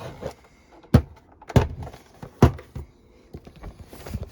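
Handling noise from a plastic radio alarm clock being turned over and moved: three sharp knocks and clicks with lighter taps between.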